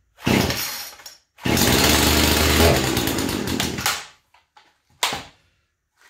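Poulan Pro PP4218 two-stroke chainsaw being pull-started on choke, which also holds the throttle cracked open. A starter-rope pull comes first, then the engine fires and runs for about two and a half seconds before dying away. A short burst near the end is another pull or a brief firing.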